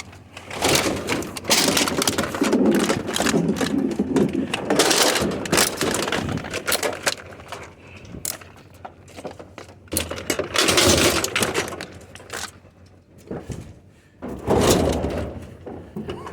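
Scrap metal appliances being shoved and straightened in a load, with irregular clanks, knocks and scrapes of sheet metal.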